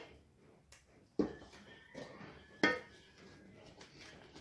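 A kitchen utensil knocking twice against a dish, about a second in and again near the middle, with a faint ring after the first knock.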